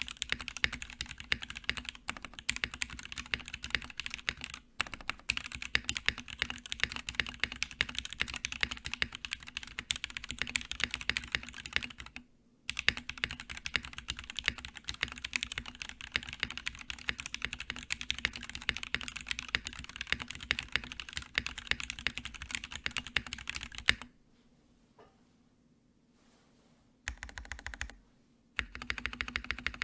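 Fast, continuous typing on a polycarbonate Sirius mechanical keyboard with lubed Gateron Black Ink v2 linear switches, PBT keycaps and a POM plate. The typing pauses briefly near the middle, stops about 24 seconds in, then comes back as two short bursts near the end.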